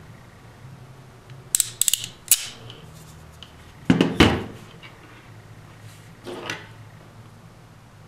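Ratcheting crimper clicking through its ratchet as a female PC power-connector terminal is crimped onto a wire. There is a quick run of sharp clicks about a second and a half in, a louder snap with clatter near the middle, and a softer click later on.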